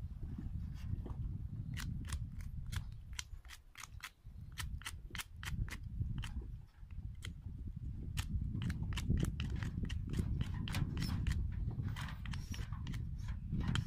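Knife blade whittling a small wooden stick: a run of short, sharp cutting strokes, about two or three a second, with brief pauses.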